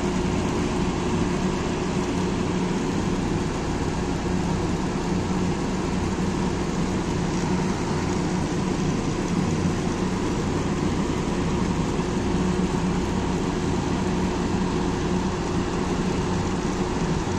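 Zamil packaged air-conditioning unit running steadily with its compressor and fan on, a constant machine noise with a low steady hum.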